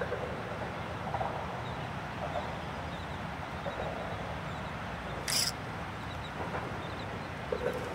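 Faint bird calls, a few short calls spaced a second or more apart, over a steady low background noise, with one sharp click about five seconds in.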